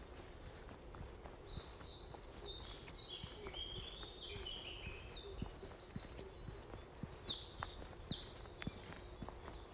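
Several woodland songbirds singing together, with many quick high chirps and descending trills that are busiest from about two to eight seconds in. Soft regular footsteps sound underneath.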